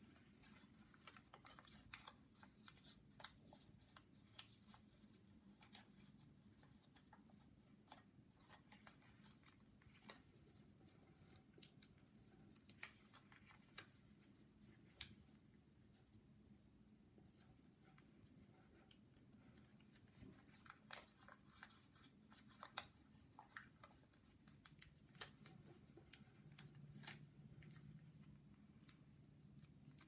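Faint crinkling and creasing of a small square of origami paper folded by hand: an irregular scatter of small, sharp crackles over a low steady room hum.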